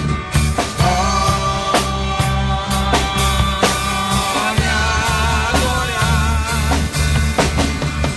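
Christian worship song playing, a band with a steady drum-kit beat and bass, and a wavering, vibrato-like melody line coming in about a second in.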